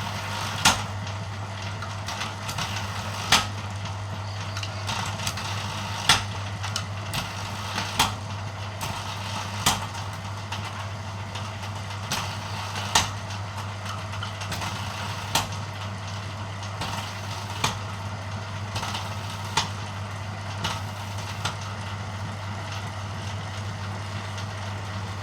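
Bamboo-thinning machine running with a steady hum, with a sharp knock every two to three seconds as bamboo strips are fed through and thinned.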